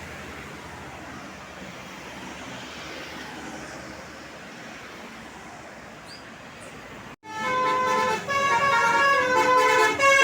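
Steady road traffic noise that cuts off abruptly about seven seconds in. Then a tour bus's Basuri telolet horn plays a loud multi-note tune, its notes stepping up and down.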